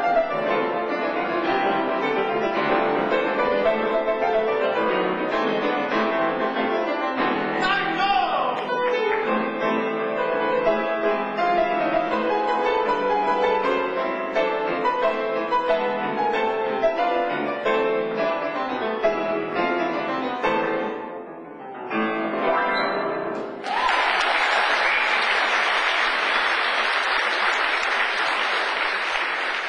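Grand piano played solo, busy and continuous. After a brief pause, a short final phrase ends the piece about three-quarters of the way in, and audience applause follows.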